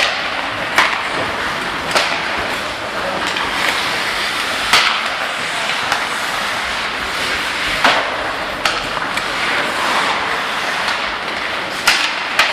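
Ice hockey in play: skates scraping and carving the ice in a steady hiss, with about five sharp clacks of sticks striking the puck or the puck hitting the boards.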